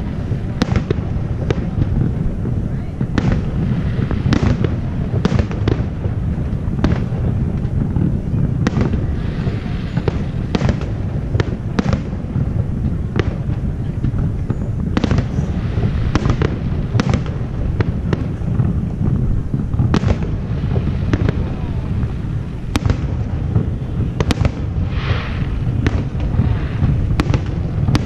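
Aerial fireworks shells bursting in quick, irregular succession: many sharp bangs over a continuous low rumble.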